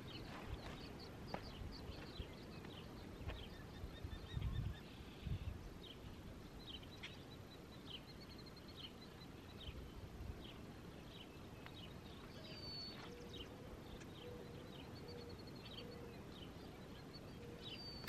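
Birds calling outdoors: many short, repeated chirps, with a brief high trill about seven seconds in, over faint background noise.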